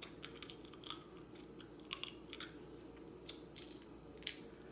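Faint close-up chewing of seafood with scattered short, sharp clicks and small cracks as crab leg meat is eaten and picked from the shell.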